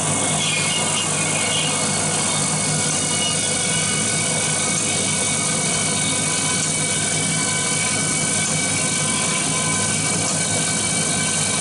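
A power tool's motor running steadily under load, with a steady whine over a dense hiss.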